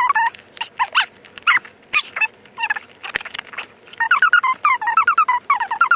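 Fast-forwarded audio of the iPod case packaging being opened: a rapid run of high-pitched chirps and squeaks mixed with handling clicks, growing busier about two-thirds of the way in.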